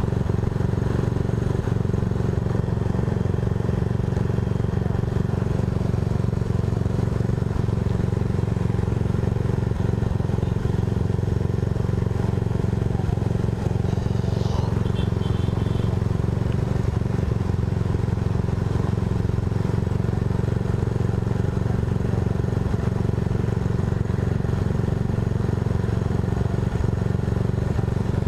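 Yamaha Mio i 125 scooter's single-cylinder engine idling steadily while stopped, with a faint brief high chirp about halfway through.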